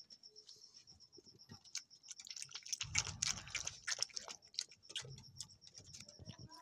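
German shepherd puppies shuffling and feeding on wooden boards: a patter of small clicks and taps from paws and a metal food bowl, busiest about three seconds in, over a faint, steady, fast high ticking.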